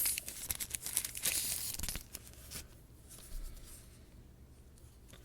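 Plastic packaging bag crinkling and crackling as it is handled and opened, busiest in the first two and a half seconds, then only faint rustling.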